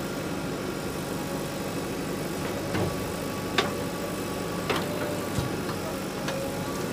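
JCB 3DX backhoe loader's diesel engine running steadily as the backhoe arm swings a loaded bucket, with a few sharp knocks in the second half.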